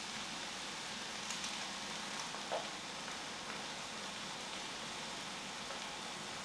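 Soft steady sizzling hiss of ground meat and corn cooking in a frying pan on a propane camp stove, with a few faint clicks.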